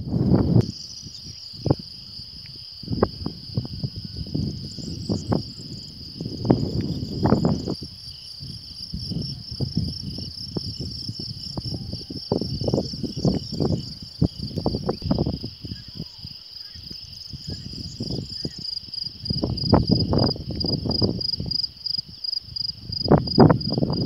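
Insects trilling steadily in a grassy meadow, a continuous high pulsing chirr that becomes more evenly beating near the end. Under it run irregular low rumbling bursts, louder than the chirr.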